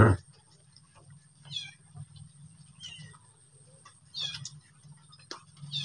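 Short, high-pitched animal calls, each with a wavering pitch, repeating about every one and a half seconds. A short loud sound comes right at the start.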